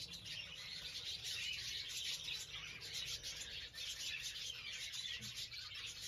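A flock of budgerigars chattering, many small chirps and warbles overlapping in a continuous mass.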